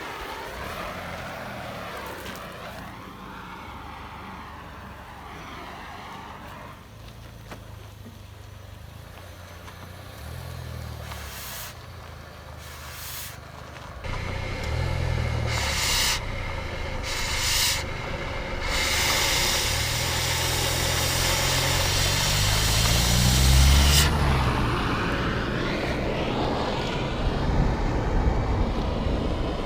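A vehicle engine running, its pitch rising and falling several times as it revs. Near the end a loud hiss builds and cuts off suddenly, just after a rise in revs.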